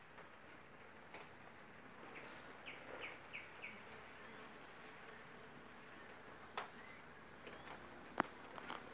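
Faint buzzing of bees foraging at annatto flowers. Birds chirp over it, a quick run of four short chirps about three seconds in and high twittering in the last few seconds, and a single sharp click sounds near the end.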